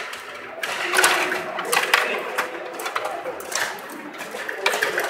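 Stiga table hockey being played: rapid, irregular clicking and clattering of the metal control rods and plastic player figures, with a few louder knocks.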